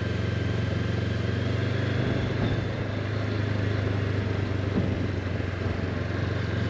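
Honda CB500X motorcycle's parallel-twin engine running steadily while riding, over a steady rush of wind and road noise.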